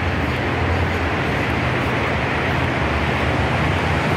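Steady rushing noise with a low hum underneath and no distinct events: open-air background noise of the sort that wind and traffic make.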